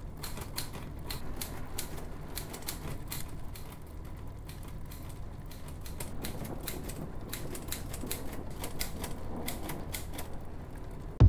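Pluma 22 manual portable typewriter being typed on: a quick, irregular run of sharp keystroke clacks as the typebars strike the paper.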